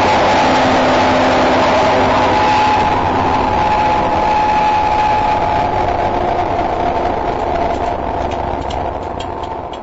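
A pair of Class 67 diesel locomotives working under power, their EMD two-stroke V12 engines giving a loud, steady thrash with a couple of held tones, fading steadily as the train pulls away. A scatter of sharp clicks comes in near the end.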